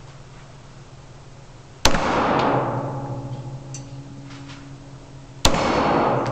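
Two 9mm pistol shots about three and a half seconds apart, each a sharp crack followed by a long echo off the concrete walls of an indoor shooting range. A few faint clicks fall between the shots.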